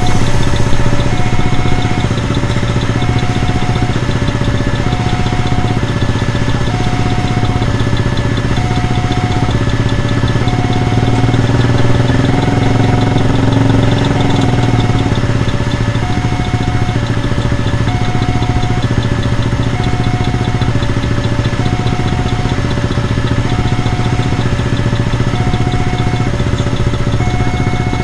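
Railway level-crossing warning alarm sounding a steady two-tone signal, the two tones alternating about once a second, as a long freight train of flat wagons loaded with rails rolls past. Underneath, a steady low engine hum from idling motorcycles and the train.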